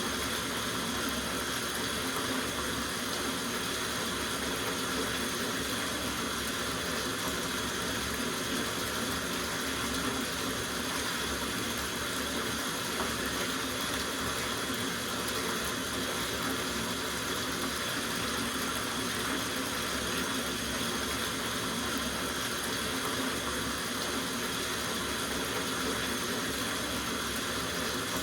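Tap water running steadily into a soaking bathtub, a constant splashing rush with no change.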